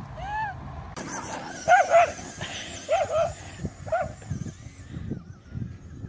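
Short, arched animal calls: one, then two pairs and a single call.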